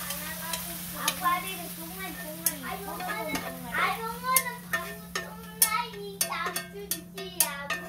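Metal tongs clicking and scraping against a nonstick frying pan as stir-fried kimchi is pushed out onto a plate. The clicks come thickest in the second half, over voices talking in the background and a steady low hum.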